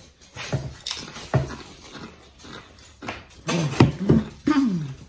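A dog whining, several short whines that rise and fall in pitch in the second half, with a few crunches of chips being eaten earlier.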